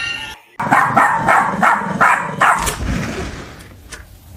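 A dog barking rapidly, about six barks in two seconds, then quieter.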